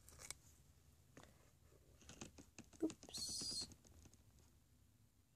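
Small plastic clicks and taps as a squeeze bottle of white glue is handled, then a short hiss a little past three seconds in as glue is squeezed out onto a clear plastic lid.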